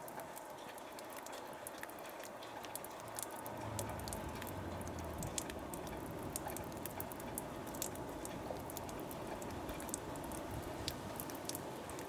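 Outdoor ambience: a steady hiss scattered with many light ticks and patter, with a low rumble coming in about three or four seconds in.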